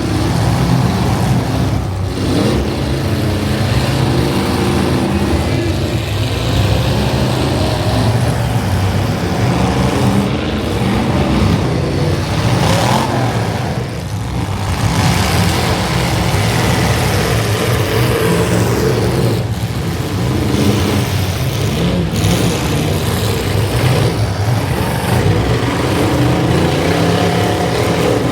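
Demolition derby cars' engines running and revving loudly and without a break.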